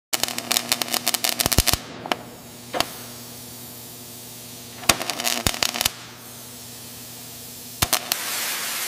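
Bursts of rapid, sharp cracks and clicks: a dense run in the first two seconds, another cluster about five seconds in and a few more near the end, over a low steady hum.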